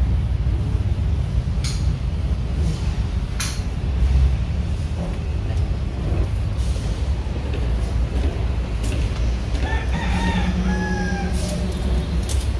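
A rooster crows once, about ten seconds in, with a wavering then falling tone. It sounds over a steady low rumble and a few sharp clicks from the car's plastic headliner trim being handled.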